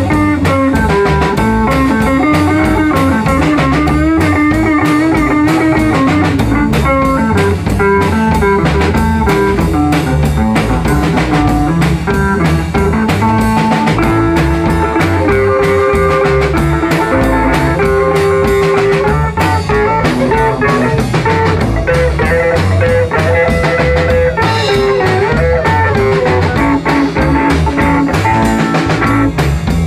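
Rockabilly band playing an instrumental passage: guitar lead lines over a steady drum-kit beat, with no singing.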